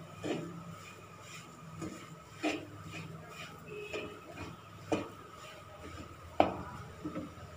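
Wooden spatula scraping and knocking against a metal kadhai while stirring a thick mashed potato and soya mixture. The strokes come irregularly, a few seconds apart, with the sharpest knock near the end, over a faint steady hum.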